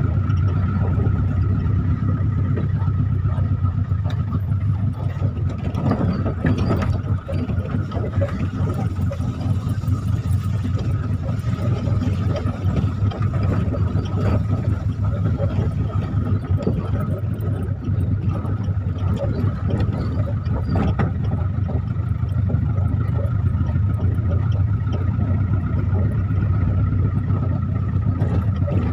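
Engine and road noise heard from inside the cabin of a moving Kolkata yellow taxi, a Hindustan Ambassador: a steady low drone with a faint steady high whine, and a few brief knocks or rattles.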